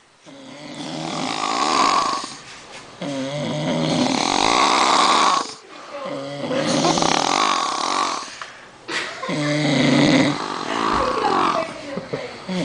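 A sleeping person snoring heavily, one snore about every three seconds, with short quiet gaps between breaths. Some of the snores carry a pitched drone.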